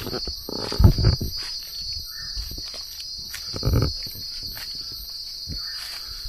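Footsteps and rustling on the forest floor, with two louder scuffs about a second in and near the four-second mark, over a steady high drone of insects.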